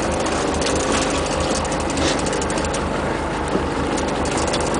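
Boat engine running steadily at low speed, an even pulsing rumble.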